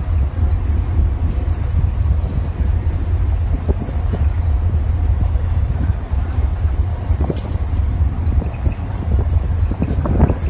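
Passenger ship under way at sea: a loud, steady low rumble of wind buffeting the microphone over the ship's running noise.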